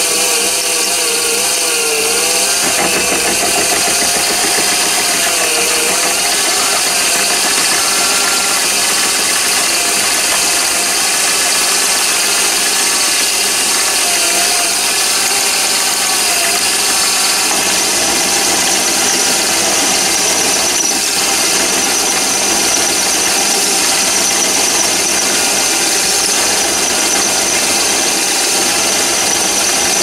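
Chinese mini lathe running steadily while a 10 mm drill in the tailstock chuck bores into the spinning workpiece. The cutting gives a wavering squeal during the first few seconds and again around halfway.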